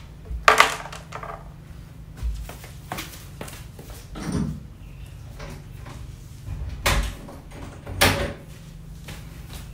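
A room door being shut and locked: a series of separate knocks, clicks and handling noises, the loudest about half a second in and about eight seconds in, over a steady low hum.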